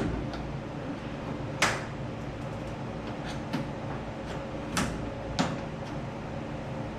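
Scattered sharp clicks and knocks over a steady low hum, the loudest about one and a half seconds in: a 1973 Ford F100 door's window seal being pried and pulled loose, its hooks catching and snapping free of the door's holes.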